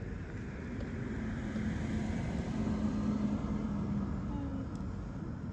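A motor vehicle passing on the road: a steady engine hum that grows louder over the first few seconds, peaks about three seconds in, then fades away, over a low rumble.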